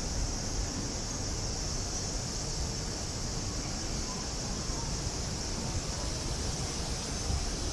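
Steady outdoor ambience: a constant high-pitched hiss over a low, uneven rumble, with no distinct events.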